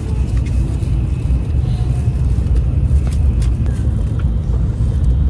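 Steady low rumble of a Shinkansen bullet train running at speed, heard from inside the passenger cabin, with a few faint clicks from plastic bento packaging being handled.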